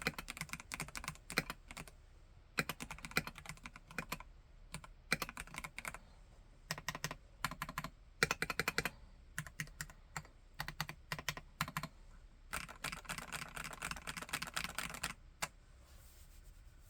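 Typing on a Vortex KBT RE:68 mechanical keyboard with Gateron G Pro Red linear switches: quick runs of keystrokes with short pauses between them. The last and longest run ends about a second and a half before the end, followed by a single keystroke.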